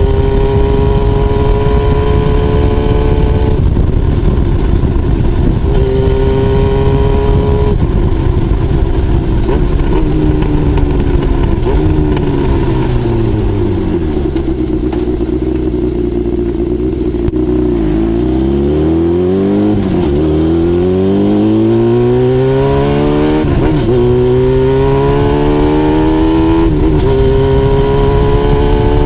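Honda CBX550F inline-four running through a homemade exhaust silencer while riding: a steady high note, then the revs falling away to a low, slow note as the bike slows. It then picks up through the gears, each rising pull broken by a short dip at a gear change.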